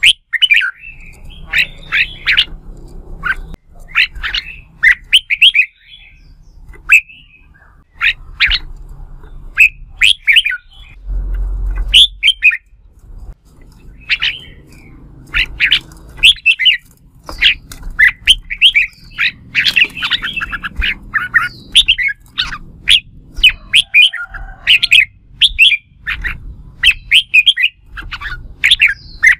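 Red-whiskered bulbul singing contest song: quick, loud runs of short, sharp chirping phrases, repeated with brief gaps. A brief low rumble sounds a little before the middle.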